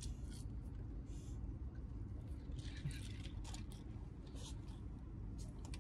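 Quiet room tone with a steady low hum and a few faint, scattered clicks and rustles.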